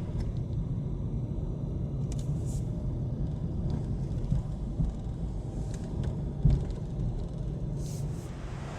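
Steady low rumble of outdoor street ambience, with a few faint clicks and a single thump about six and a half seconds in.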